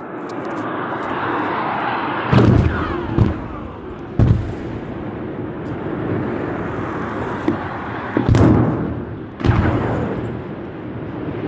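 Airstrike explosions: five heavy blasts with rumbling tails, spaced irregularly, the loudest about two seconds in and again near eight seconds. Beneath them a continuous rushing noise of aircraft overhead.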